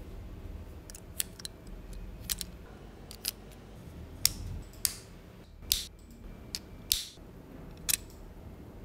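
LEGO Technic plastic parts clicking as gears are pushed onto axles and fitted into Technic beams: a dozen or so sharp, irregular plastic clicks and snaps.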